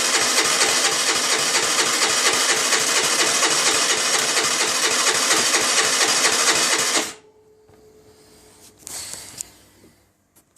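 Baotian Tanco 50cc four-stroke scooter engine clattering at a fast, even rhythm, then stopping abruptly about seven seconds in. A brief faint hum and a short rustle follow.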